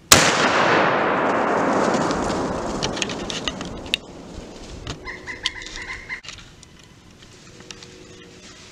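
A single muzzleloader rifle shot: one sharp boom with a long echoing rumble through the woods that dies away over about three seconds. Scattered rustles follow, and a short high-pitched call sounds about five seconds in.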